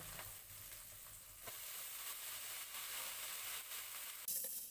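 Low sizzle of frying in a wok as water spinach is added to the cooked chili-garlic paste and stirred, with a single knock about a second and a half in. Near the end a sharper hiss starts suddenly.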